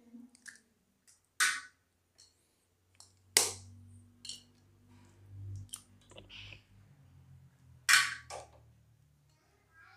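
Raw eggs being tapped and cracked open over a stainless steel plate: a few sharp cracks and clicks spread out, three of them louder than the rest, the loudest near the end.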